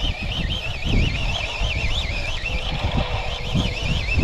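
Wind buffeting the microphone and water slapping against the hull of a small fishing boat under way on a lake, with a steady high warbling whine running underneath.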